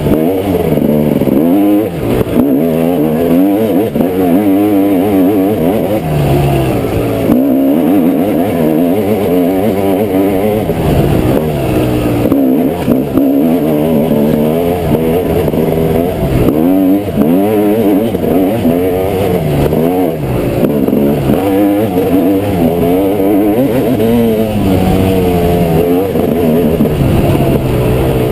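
Off-road dirt bike engine heard close up from on board, revved hard and continuously as the bike is ridden along a dirt trail, its pitch rising and falling constantly with throttle changes and gear shifts.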